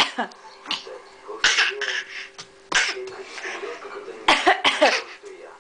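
An adult and a toddler taking turns at short, deliberate coughs, the child imitating the adult's coughing. There are several single coughs and a quick run of three about four seconds in.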